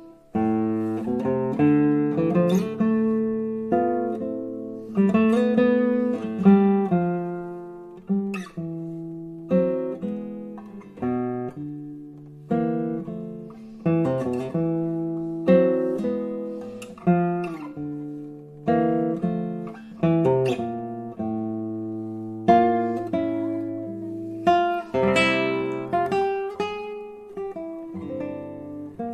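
Solo nylon-string classical guitar playing: plucked notes and chords, each attack ringing and dying away, in steady phrases that begin just after a brief hush.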